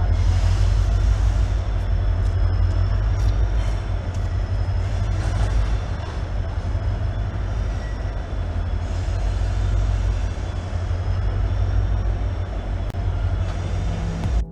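EMD 16-710G3B turbocharged two-stroke V16 diesel prime mover of a WDP4D locomotive running, its speed rising and falling (hunting), with a high whine wavering up and down along with it. The uploader thinks the Woodward governor is not working properly.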